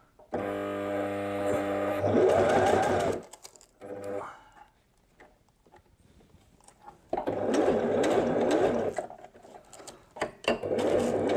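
Electric domestic sewing machine stitching through the hook side of hook-and-loop tape on a nylon pouch. It runs in short bursts of one to three seconds, starting and stopping, with a quiet pause in the middle.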